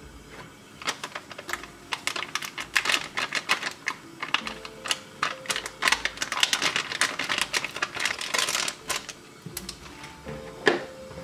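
Foil ration pouch crinkling and crackling as it is squeezed and worked to empty chocolate drink powder into a mug: a dense run of sharp crackles from about a second in until near the end, then a single sharp knock.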